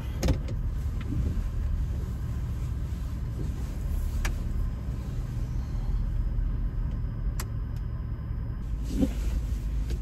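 Cab noise of a Ford F-250 Super Duty pickup as it gets under way: a steady low rumble from engine and road, with a couple of faint ticks.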